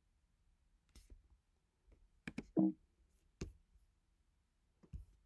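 Several sharp clicks as a computer is worked between recordings, with a brief low pitched sound about two and a half seconds in, the loudest moment.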